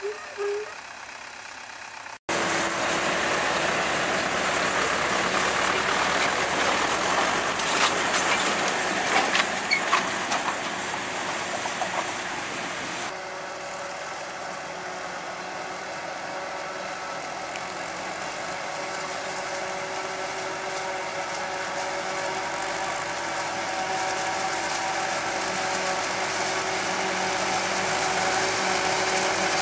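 Self-propelled forage harvester chopping maize and blowing the silage into a trailer, with a tractor's engine running alongside. Steady, loud machine noise with a constant hum, after a short bit of a tractor working a silage pile; it cuts abruptly about two seconds in and changes again about halfway through.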